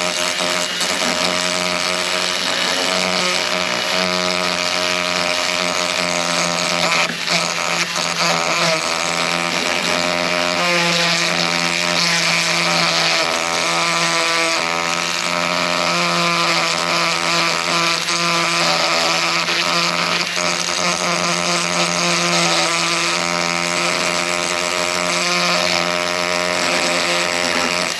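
Dremel rotary tool running steadily at high speed, a continuous motor whine that wavers slightly in pitch as the tip grinds at rust under a rubber window seal. The tip turns out not abrasive enough for the rust.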